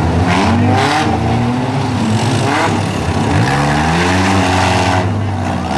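Several four-cylinder compact demolition derby cars revving hard, their engine pitches rising and falling over one another, with a few short crashes as cars hit each other.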